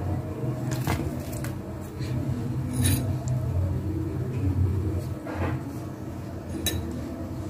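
Hands pressing onion stuffing into a folded samosa pastry sheet: soft handling rustles and a few light clicks and taps over a steady low background hum.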